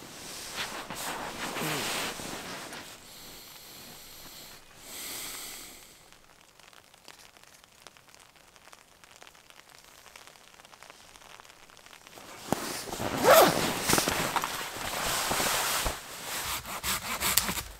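Synthetic sleeping bag and inflatable sleeping pad rustling, with a few brief squeaks, as a person sits up and shifts about on them. Softer rustles come in the first few seconds, then a quiet stretch, and the loud rustling starts about twelve seconds in.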